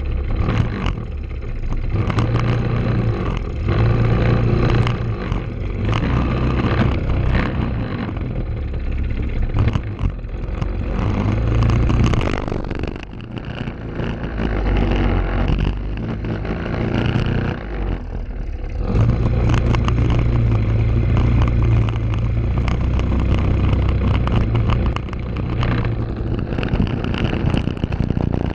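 Briggs & Stratton LO206 four-stroke single-cylinder kart engine running hard, heard onboard the kart. It pulls at high revs and drops off sharply twice as the driver lifts for corners.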